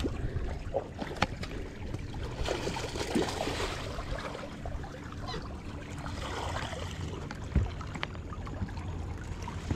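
Choppy water lapping against a small boat's hull, with a steady low wind rumble on the microphone and a few sharp clicks and knocks scattered through it.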